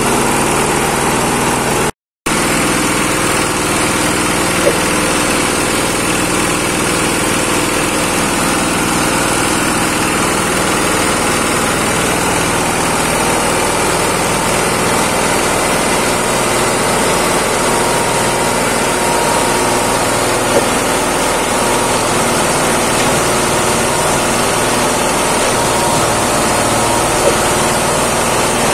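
Straw and husk grinding mill driven by an 8 HP diesel engine, running steadily while dry rice straw is fed into its hopper. The sound cuts out for a moment about two seconds in, and a few faint clicks come through the steady running.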